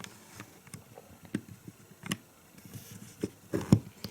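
Plastic Lego bricks clicking and tapping as pieces are handled and pressed into place: sparse single clicks, with a few louder ones a little past three seconds in.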